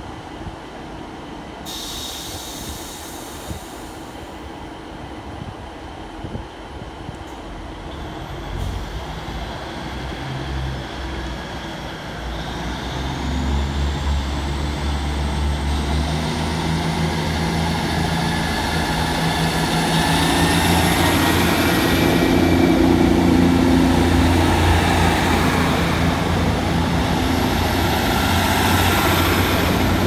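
A diesel passenger train drawing near along the platform, its engine note growing louder, with a high whine rising in pitch as it approaches.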